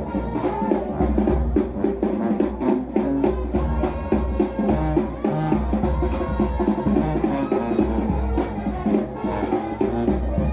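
Brass band music: horns playing over a steady bass drum and drum beat.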